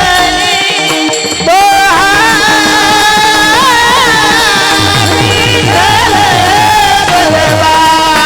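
Marathi devotional singing: a single voice holds long, ornamented notes over a steady low percussion accompaniment. It drops briefly about a second in, then comes back at full strength.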